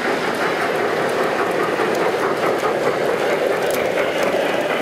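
A G scale model steam locomotive pulling passenger cars runs steadily along the layout track, with a few faint clicks late on.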